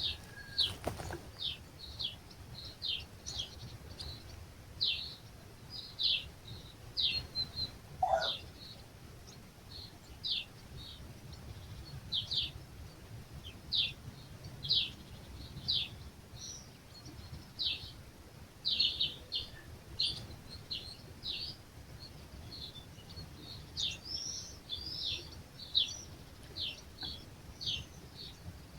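Small birds chirping at dawn among olive trees: short high notes repeated about once or twice a second, with one lower call about eight seconds in, over a steady low rush of light breeze.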